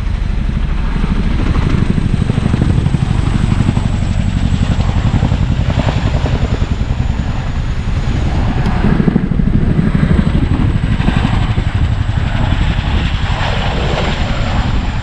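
Helicopter flying low past, its rotor blades making a loud, rapid, steady chop.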